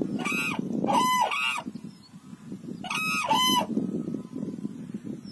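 Black-necked cranes calling: loud, ringing calls in quick pairs, with a pause of about a second and a half near the middle, over a low steady background noise.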